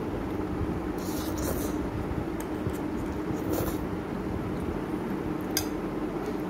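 Eating noodles with metal forks: several short clicks and scrapes of forks on plates, and noodles being slurped, over a steady background hum.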